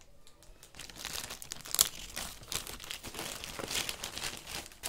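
White plastic courier mailer bag crinkling and rustling as it is handled and a boxed toy is pulled out of it. The crackling starts about a second in and comes in irregular bursts, the sharpest about two seconds in.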